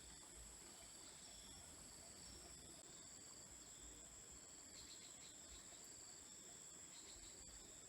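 Faint insect chorus: a steady high-pitched trill with shorter, lower chirps coming and going over it.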